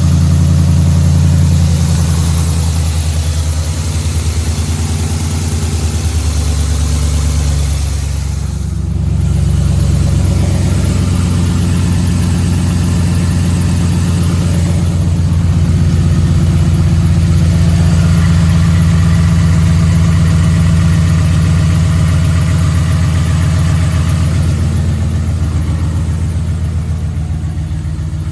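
2011 Ford F-150's 5.0-litre V8 running steadily with a rhythmic knock, which the owner takes for rod knock. The engine note dips and recovers about eight to nine seconds in.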